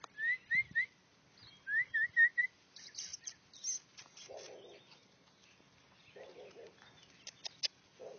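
A bird chirping: three short, rising chirps in quick succession, then four more about a second later.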